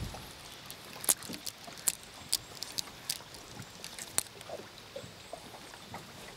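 Water lapping lightly: a dozen or so small, sharp ticks and slaps at irregular intervals over a faint hiss.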